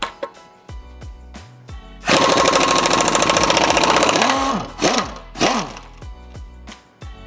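Pneumatic impact wrench hammering a wheel nut loose: a loud rapid rattle for about two and a half seconds, then two short bursts that rise and fall in pitch as it spins. Background music with a steady beat plays throughout.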